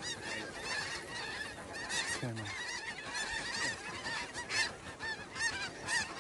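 A large flock of snow geese calling, with many high-pitched, short honking calls overlapping without a break.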